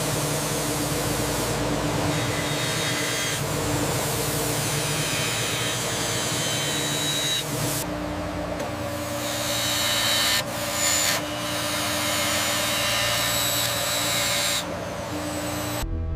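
CNC machine milling and drilling steel: a steady machine hum and spindle tone under a continuous hiss of cutting. The sound changes character about halfway through, breaks briefly twice, and cuts off just before the end.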